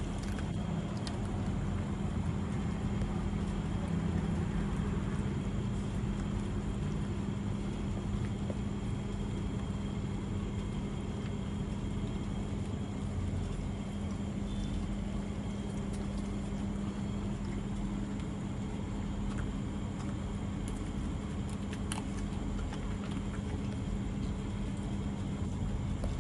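Steady low hum and rumble with a constant droning tone, from a machine or motor running, with a few faint clicks now and then.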